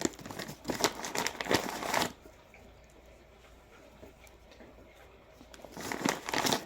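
Packaging crinkling and rough tumbling rocks clicking against each other as they are unpacked and handled. This comes in two bouts of rustling and clicks, one in the first two seconds and a shorter one near the end.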